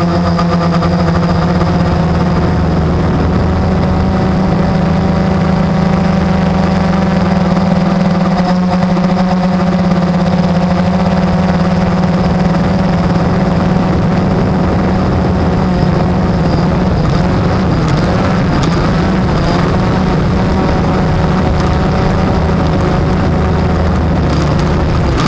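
Blade 350 quadcopter's electric motors and propellers running steadily in flight, a strong low hum with a stack of higher tones that waver slightly in pitch.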